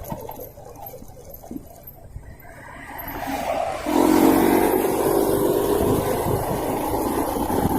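Motorcycle engine building up and running steadily under way with wind and road noise, getting much louder about four seconds in.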